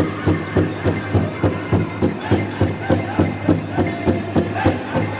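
Powwow drum group: a big drum struck in a steady beat, about three strokes a second, with several singers' voices over it.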